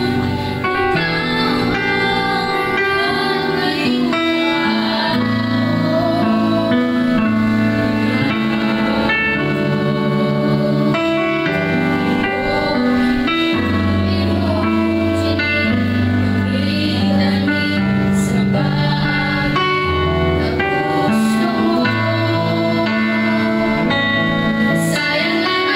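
A group of girls singing a worship song together into microphones, with instrumental accompaniment.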